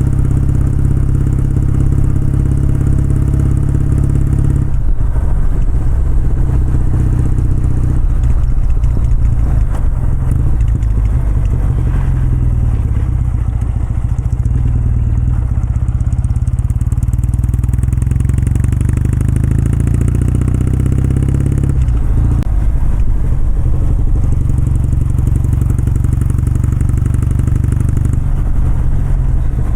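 Kawasaki W650's air-cooled parallel-twin engine and exhaust running under way. The note changes sharply about five seconds in and again around twenty-two seconds, and climbs slowly in between.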